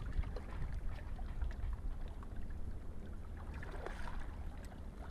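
Outdoor waterside ambience: a steady low rumble of wind on the microphone with faint scattered ticks and small splashes of water.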